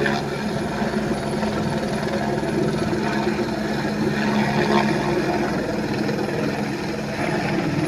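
Helicopter running steadily: a constant engine and turbine hum with the fast, even chop of the rotor blades.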